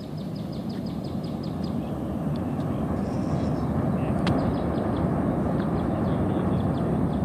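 Rumble of an Atlas V rocket's RD-180 first-stage engine heard from miles away as it climbs after liftoff, growing steadily louder.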